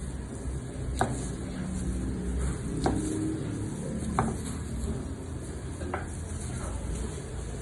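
Kitchen work: utensils clinking against pans or dishes, four sharp clinks a second or so apart, one of them ringing briefly, over a steady low hum.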